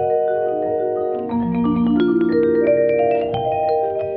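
Vibraphone played with yarn mallets: a stream of struck notes that ring on and overlap one another.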